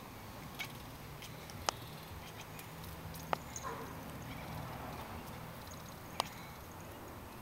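A few isolated, very short, sharp chirping calls from an animal, spaced a second or more apart, with a softer call about three and a half seconds in.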